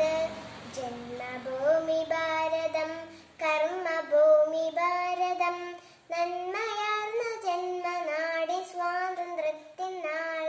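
A young girl singing solo, in long held phrases with short breaks for breath about three and six seconds in.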